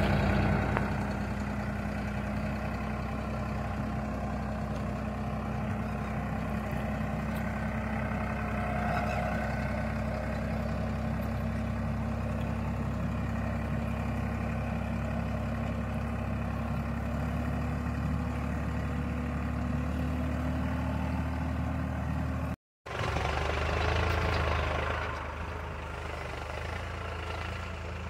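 Tractor engine running steadily while ploughing, its pitch rising slightly. The sound breaks off briefly at about 23 s and then continues.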